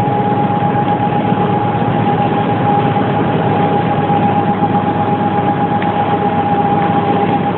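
Mitsubishi third-rail subway train standing powered up in the depot, its onboard equipment running with a steady high-pitched hum over a constant rumble.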